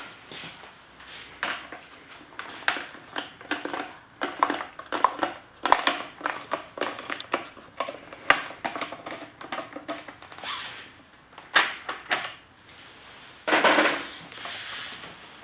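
Irregular clicks, taps and scrapes of a screwdriver working a small screw out of a motorcycle helmet's plastic shell, with knocks from the helmet being handled. Near the end there is a longer rustling scrape.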